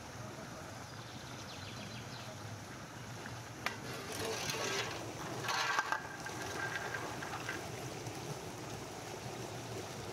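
Pomegranate arils being poured from one steel basin into another: a sharp metal knock about three and a half seconds in, then a couple of seconds of rattling pour with a short ringing of the steel bowl. Under it, the steady trickle of running water in a small channel.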